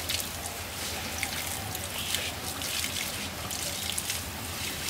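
Hose water splashing and dripping onto wet pavement, with irregular short scrubbing strokes of a hand brush on an elephant's hide.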